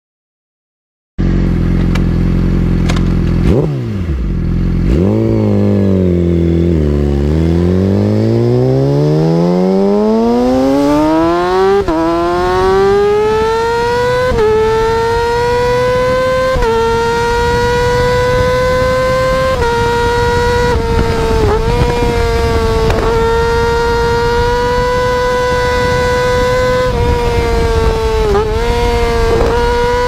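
Yamaha YZF-R6 inline-four sportbike engine accelerating hard through the gears. The revs climb steeply, then each quick upshift makes a brief dip in pitch before the engine settles into a high, fairly steady note.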